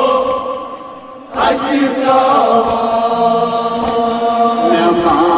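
Men chanting a Kashmiri nauha, a mourning lament for Fatima Zahra, as a slow sung recitation. The line dies away about a second in and the chant picks up again after a brief pause.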